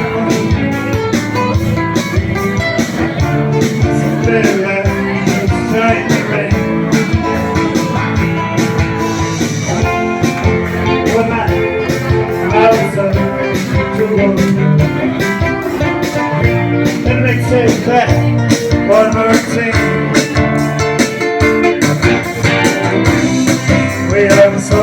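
Music with guitar and singing over a steady beat.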